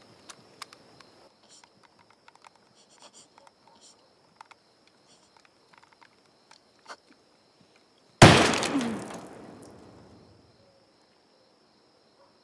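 A single loud bang about eight seconds in that dies away over about two seconds, after several seconds of faint scattered clicks and rustles.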